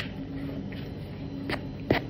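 Small metal spoon stirring dry flour in a plastic bowl: soft scraping, with sharp clicks of the spoon against the bowl, one at the start and two near the end.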